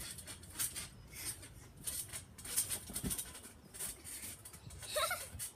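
Trampoline springs and mat squeaking and creaking in a quick rhythm, about two to three squeaks a second, as a child bounces. A short, higher, pitched squeak comes near the end.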